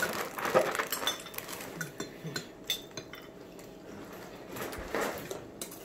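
Spoons clinking and scraping against clear glass bowls of cereal and milk as people eat, a few sharp clinks scattered through, with some chewing.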